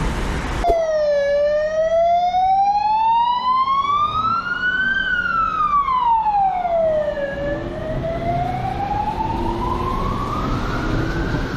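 Emergency vehicle siren sounding a slow wail, cutting in abruptly under a second in. Its pitch rises for about four seconds, falls back over two or three seconds, then starts rising again.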